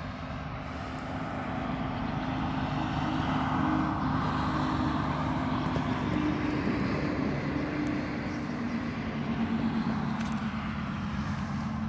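1977 Honda XL175's single-cylinder four-stroke engine idling steadily, getting louder a few seconds in.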